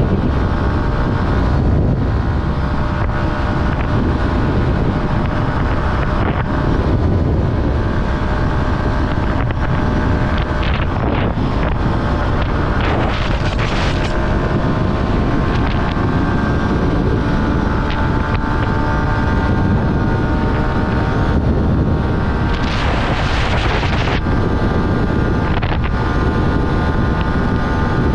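Yamaha R15 motorcycle's single-cylinder engine running steadily at road speed, with heavy wind rush over the microphone and small shifts in engine pitch.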